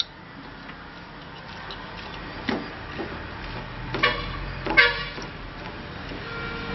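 Perforated steel ladle stirring and scraping lemon rice around an aluminium kadai. It knocks against the pan three times, about two and a half, four and five seconds in, and the last two clanks ring briefly.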